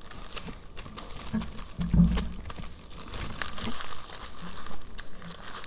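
Paper burger wrappers crinkling as the burgers are handled, with scattered light ticks and a low bump about two seconds in.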